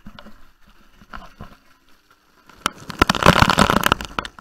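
Water splashing and spraying onto the camera, heard as close crackling hits: scattered at first, then a loud, dense spatter for about a second and a half that stops suddenly near the end.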